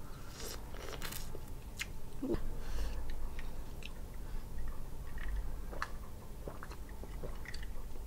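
Close-up chewing and biting of crawfish and crab meat, with small crunches and clicks. Partway through comes a sip from a glass mug.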